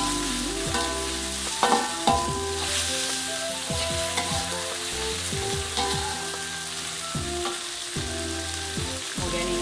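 Spice paste of chili, shallot, garlic and tomato sizzling in hot oil in an aluminium wok, stirred and scraped with a metal spatula, with a couple of louder spatula knocks about two seconds in.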